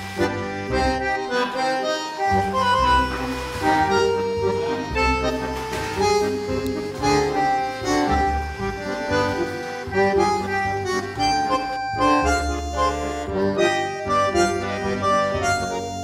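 Instrumental background music carrying a melody of changing notes over a bass line.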